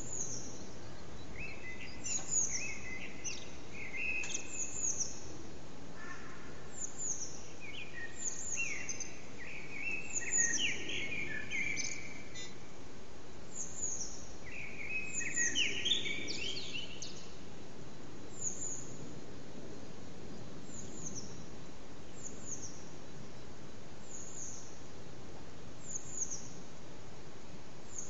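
Eurasian blackbird singing its morning song in short fluting phrases during the first half, while another bird's high, thin, falling notes repeat about once a second throughout, over a steady city background hum.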